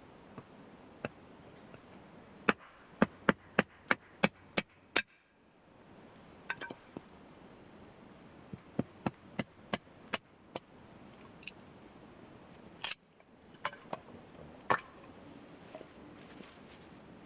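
Repeated sharp strikes of a hand tool, in two quick runs of about three a second, with a few single knocks between.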